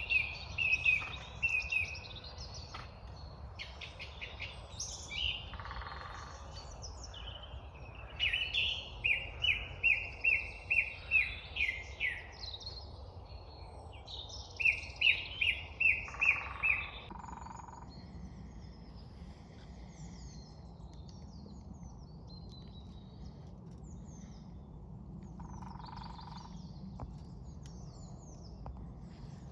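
Birds calling: one bird gives loud runs of a repeated ringing note, about two notes a second, three times, with fainter high chirping from other small birds in the latter half. A low steady rumble lies underneath.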